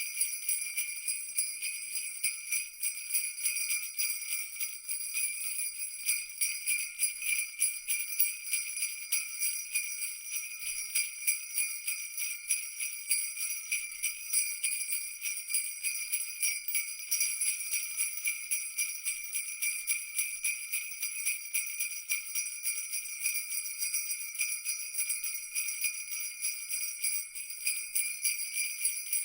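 Christmas jingle bells shaken without a break, a steady bright jingling that pulses with the shaking.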